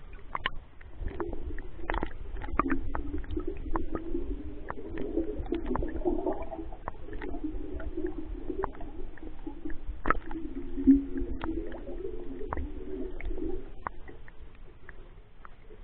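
Lake water gurgling and sloshing around a floating waterproof camera as it bobs at and under the surface, heard muffled through the housing, with many small clicks and knocks of water against it.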